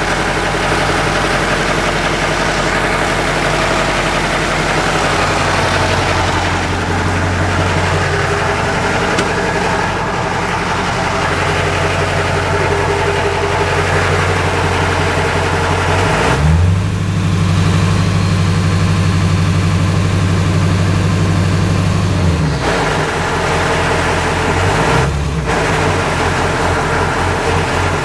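Ford 7.3 Powerstroke V8 turbo-diesel idling. It is revved up about halfway through and held for several seconds, drops back to idle, and is blipped once more briefly near the end. The truck is making a noise that its owner calls weird.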